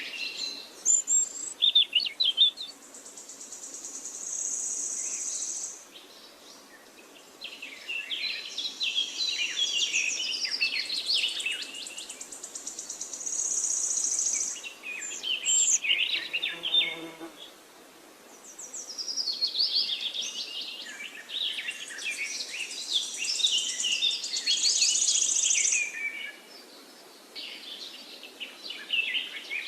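Several wild songbirds chirping and singing in overlapping phrases over the faint steady rush of a river. A high, buzzing trill comes in and fades three times.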